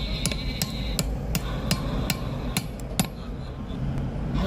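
Heavy hammer striking a steel drive-shaft yoke in a run of sharp metal blows, roughly three a second, thinning out about three seconds in. The blows seat the bearing cups of a universal-joint cross as it is fitted.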